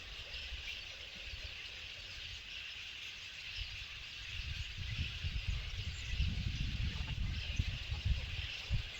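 Steady high-pitched chorus of small calling creatures, with a low rumbling noise setting in about four seconds in and running on.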